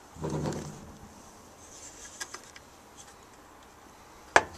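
Wooden box lid closing with a single sharp knock near the end, after a few faint clicks.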